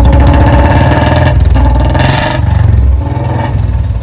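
Royal Enfield Bullet's single-cylinder engine being revved through its exhaust, the revs rising at the start and again about two seconds in, then easing back near the end.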